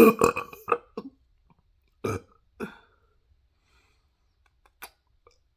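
A person burping: a long, loud burp that falls in pitch ends just after the start, followed by several short burps over the next three seconds. A faint click comes near the end.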